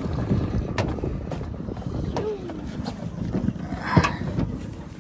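Outboard motor on a small aluminium boat running under way, with wind buffeting the microphone. A sharp knock about four seconds in.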